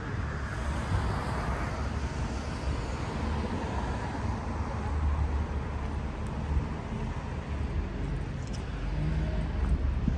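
City street ambience: a steady low rumble of road traffic, with no single event standing out.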